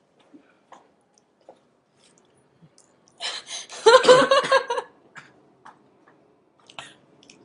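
A few faint clicks, then about three seconds in a loud burst of a person's voice lasting about a second and a half, followed by a few small ticks.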